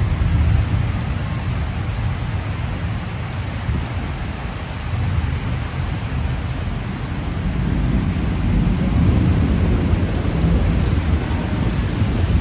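Heavy rain pouring steadily onto corrugated metal roofs, a dense even hiss. A low rolling rumble of thunder runs underneath and grows louder in the second half.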